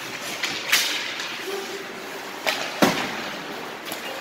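Ice hockey play: a few sharp clacks of sticks and puck, and a heavier thud about three seconds in, typical of a puck or player hitting the boards.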